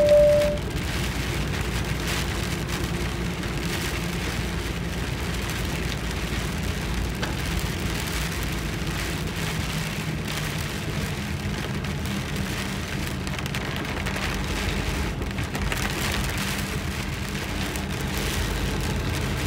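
Heavy rain falling on a moving vehicle, heard from inside the cab, with the engine and tyres running low and steady underneath. A brief single-pitched beep sounds right at the start.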